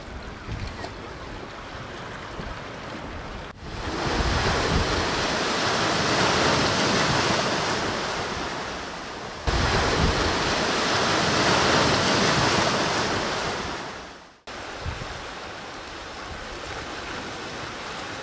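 Ocean surf breaking and washing over coastal rocks, with wind on the microphone. The surf is loudest in two long stretches from about four seconds in to about fourteen seconds, the second swelling and then fading away, with quieter wind and surf before and after.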